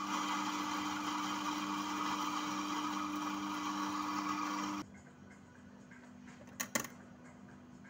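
Electric espresso grinder running steadily with a motor hum, grinding coffee beans into a portafilter, then stopping abruptly a little under five seconds in. About two seconds later come two quick knocks close together.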